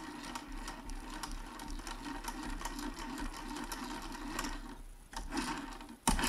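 Singer 401A sewing machine's needle-bar mechanism clicking and clattering as it is turned over by hand. The mechanism has just been soaked with Tri-Flow and is freeing up after being stiff. One sharp, loud clack comes near the end.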